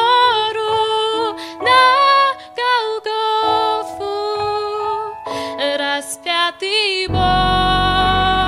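Slow song accompaniment: a melody line moving over held chords, with deep bass coming back in about seven seconds in.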